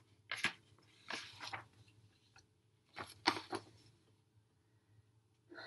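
Sheets of paper rustling as pages are handled and turned, in three short crinkly bursts over the first few seconds.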